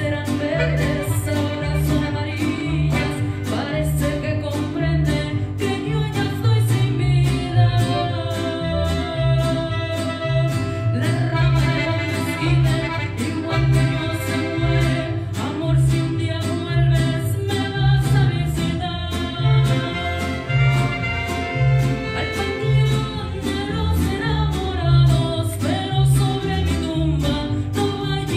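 Mariachi ensemble playing a song: a woman sings a melody into a microphone over violins and strummed guitars, with a steady low bass line pulsing underneath.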